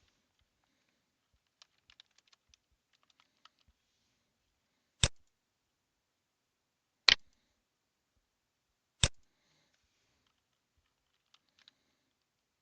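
Clicks and taps at a computer: scattered faint keyboard and mouse clicks, then three loud sharp clicks about two seconds apart, then a few faint clicks again.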